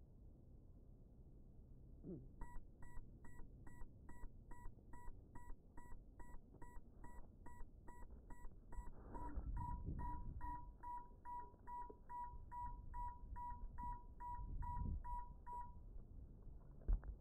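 FPV quadcopter's lost-model beeper sounding after the drone has come down in grass: short electronic beeps repeating evenly about two and a half times a second, starting a couple of seconds in and stopping shortly before the end. Low rustling comes and goes under the beeps, and a sharp knock near the end as the drone is picked up is the loudest sound.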